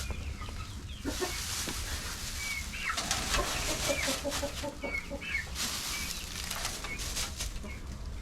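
Hens clucking, with a quick run of low clucks about three seconds in and short higher chirps, over rustling in the coop.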